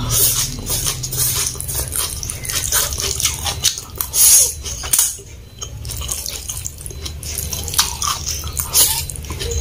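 Close-miked wet slurping and chewing of Indomie goreng fried instant noodles, with clicking, smacking mouth sounds and a louder slurp about four seconds in.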